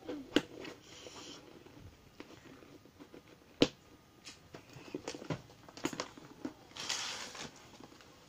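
A small bag being handled and rustled, with scattered sharp clicks and taps, two louder ones about half a second in and a little past a third of the way through, and a short rustling hiss near the end.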